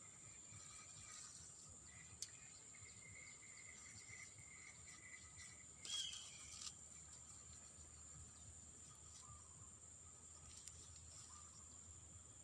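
Faint, steady chorus of insects with high, continuous buzzing tones. About six seconds in there is one brief, sharper sound.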